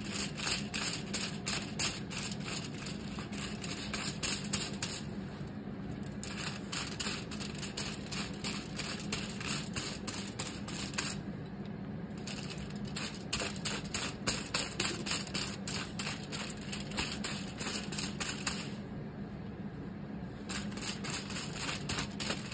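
Tint brush dabbing and stroking hair colour onto strands laid on aluminium foil: rapid crinkly taps, several a second, over a steady low hum.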